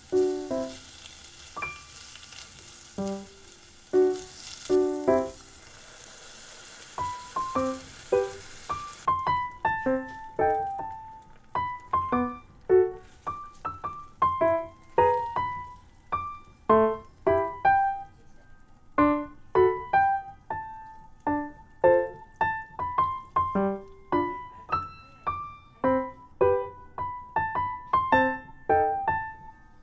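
Background piano music, one note after another. For about the first nine seconds a faint sizzle of pork frying in a pot runs under it, then stops abruptly.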